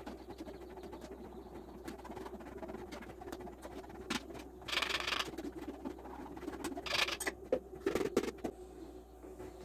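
A spoon scraping and stirring grape pulp in a sieve over a metal pot, with a few short, louder scrapes past the middle and a plastic bag rustling near the end, over a steady low background sound.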